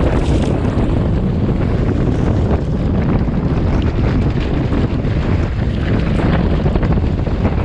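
Strong wind buffeting the microphone on a sailing yacht's deck, over the steady rush of waves and spray as the boat beats into rough sea.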